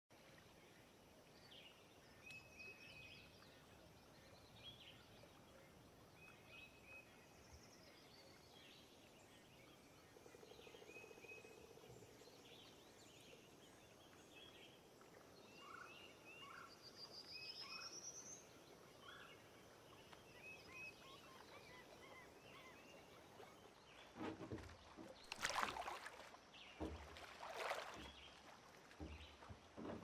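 Faint lakeside woodland ambience with small birds chirping and calling on and off. A few louder splashes in the water come near the end.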